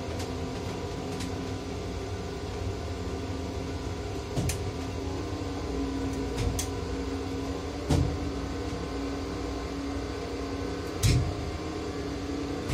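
Potain MC 310 tower crane heard from inside its cab: a steady electric drive hum with a low rumble while the crane slews, broken by about six sharp knocks and clicks.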